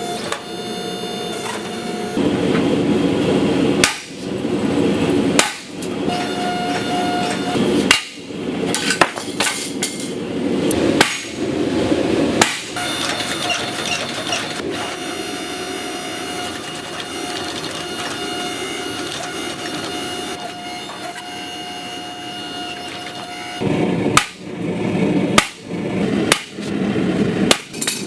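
Hammer blows on metal at irregular intervals, several seconds apart at first, then a quicker run of blows near the end, over a steady rushing noise.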